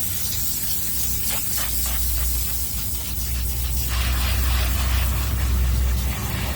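Soaped dog bedding being washed by hand, with a series of short scrubbing strokes, then a steady hiss of spraying water from about four seconds in, over a low hum.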